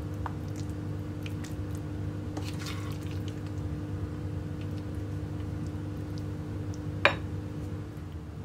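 Sauce-coated penne being spooned onto a plate: soft wet squishing and faint ticks, with one sharper tap about seven seconds in, over a steady low hum.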